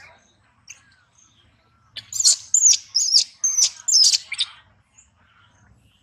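A quick run of short, high-pitched squeaky chirping calls, about eight to ten in two and a half seconds, starting about two seconds in.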